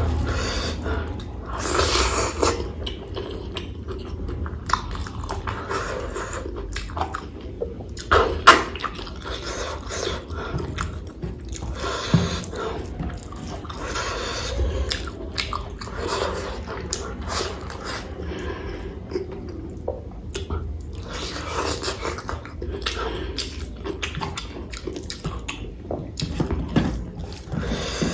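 Close-miked chewing and wet mouth sounds of a person eating rice with potato and cauliflower curry, with irregular small crunches and smacks; a sharper click comes about eight seconds in.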